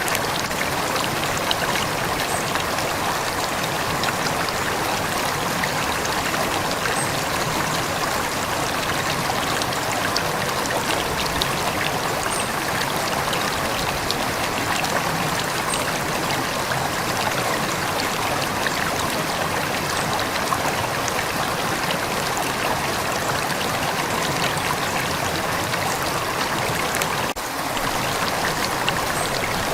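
A calm river flowing steadily: a constant rush of running water with fine trickling and splashing.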